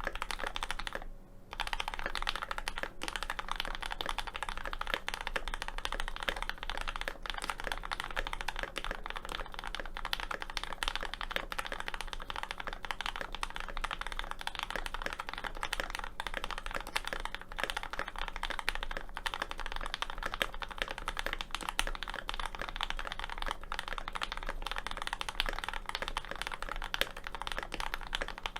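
Continuous fast typing on a GMMK Pro mechanical keyboard with an aluminium plate and tape mod, fitted with lubed and filmed Kinetic Labs Hippo switches and GMK Dracula keycaps: a dense, steady stream of keystroke clacks, with a short pause about a second in.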